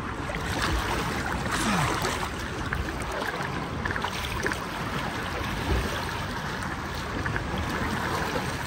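Swimming-pool water sloshing and splashing close to the microphone as people wade waist-deep: a steady rushing noise with small splashes scattered through it.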